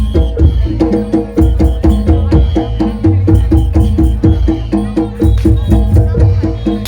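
Percussion-led music with a fast, steady beat: drum strikes over a heavy bass and short repeating pitched tones.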